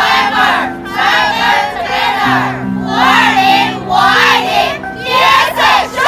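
A group of women's voices chanting or shouting in unison in short bursts, about one a second, over background music.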